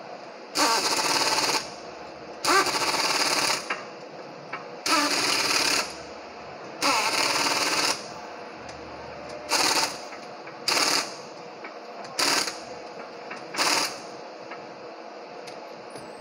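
Impact wrench hammering on a car's wheel lug nuts in eight bursts: four of about a second each, then four shorter blips spaced further apart as the nuts are tightened.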